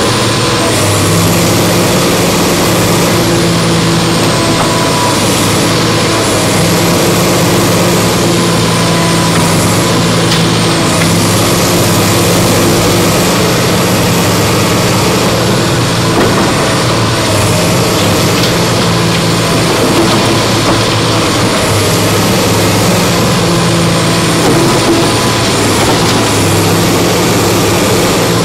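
Komatsu tracked excavator's diesel engine running steadily under load as the boom and bucket work at the wall, its low hum dipping and returning now and then. A high whine rises and falls every few seconds over it.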